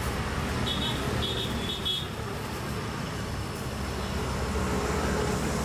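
Street traffic noise with a steady low engine hum, and three short high-pitched beeps in quick succession about a second in.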